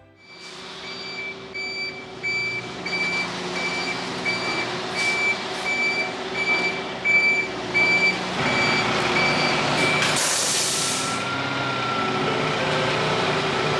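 Concrete mixer truck's diesel engine running as it backs up, its reverse alarm beeping about twice a second. The beeping stops about ten seconds in, followed by a short, sharp hiss of the air brakes as the truck sets.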